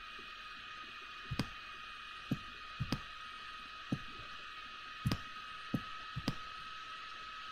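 Computer mouse clicking, about a dozen short clicks, several in quick press-and-release pairs, over a steady faint high whine and hiss.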